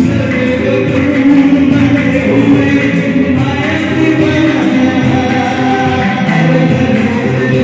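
Loud dance music with singing and a steady beat.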